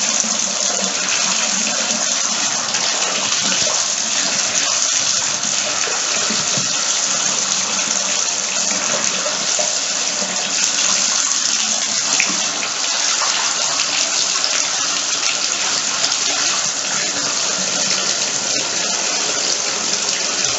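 Bathtub faucet running in a steady stream into the tub, the water splashing over an athletic shoe held under it.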